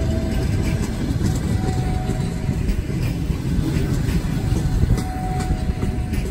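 Passenger coaches of a fast train rolling past close by: a steady heavy rumble of wheels on rail, with irregular sharp clicks as the wheels cross rail joints. A faint whine comes and goes a few times.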